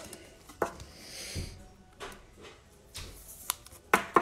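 A trading card being slid into a plastic penny sleeve and rigid top loader: a soft sliding hiss of plastic, a few light clicks, and a quick run of sharp plastic taps near the end.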